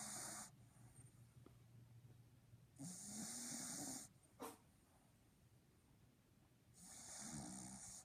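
Boston Terrier snoring in its sleep: a raspy snore breath about every four seconds, with a short click just after the middle one.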